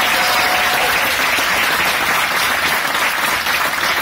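Audience applauding, a large crowd clapping steadily.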